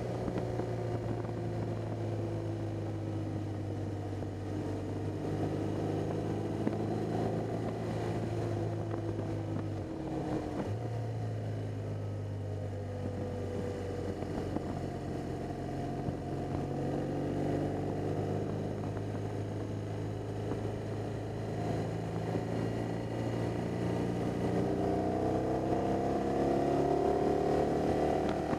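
BMW R 1200 GS boxer-twin engine running while the motorcycle is under way, with wind and road noise. The engine note breaks off briefly about ten seconds in, a gear change, and its pitch rises over the last few seconds as the bike speeds up.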